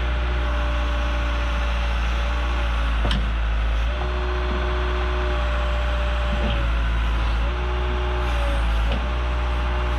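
Backhoe engine running steadily, its note shifting and dropping briefly a few times as it works. A sharp knock comes about three seconds in.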